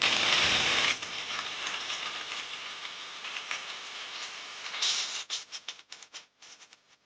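Electric arc crackling and sizzling, loudest in the first second, then breaking up into separate snaps that die away near the end.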